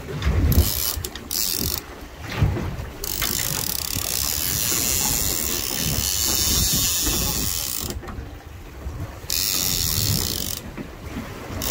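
Big-game fishing reel buzzing in several spells, the longest about five seconds, as line is pulled off against the drag by a hooked striped marlin taking line.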